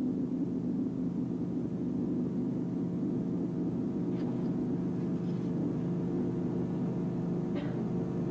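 Steady low electrical hum with several evenly spaced tones, holding level throughout, with a few faint brief noises from the room near the middle and end.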